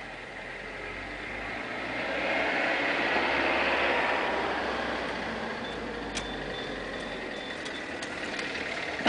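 A road vehicle passing: engine and tyre noise swells, peaks about three to four seconds in, then fades, over a steady low hum.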